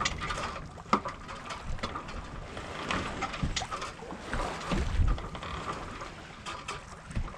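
Water lapping and sloshing against the hull of a sailboat under way, with wind on the microphone, scattered small knocks and clicks, and a few low thumps.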